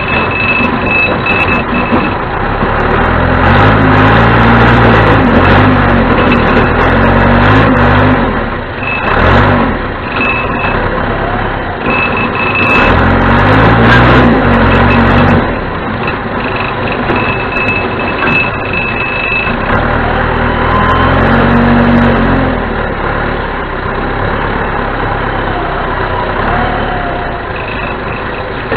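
Four-cylinder diesel engine of a 1987 John Deere 210C backhoe loader working under load, its pitch rising and falling several times as the machine is worked. A backup alarm beeps in several stretches.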